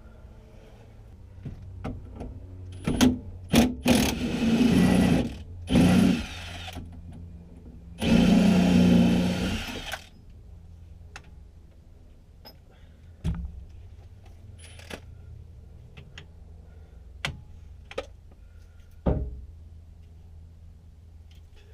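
A power tool runs in three bursts, the longest about two seconds, with a steady buzzing pitch. Scattered sharp clicks and knocks of metal tools and parts come before and after.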